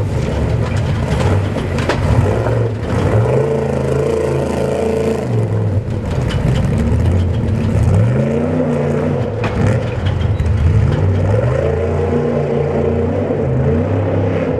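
Trophy Truck race truck's engine revving hard over rocky ground, its pitch climbing and falling several times as the throttle comes on and off, with scattered knocks.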